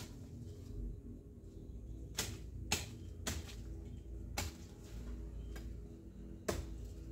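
Twigs and stems being cut or snapped in a pomelo tree: about five sharp, irregular clicks starting about two seconds in, over a low steady rumble.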